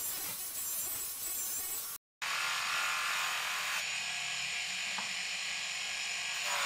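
Bench polishing motor running, its foam buffing wheel rubbing against a plastic headlight lens to polish out the haze. The sound drops out briefly about two seconds in, then the motor's steady hum carries on.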